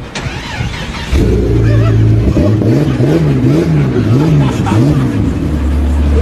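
An engine comes in loudly about a second in, holds a steady note, then revs up and down about five times in quick succession before settling to a steady lower running note near the end.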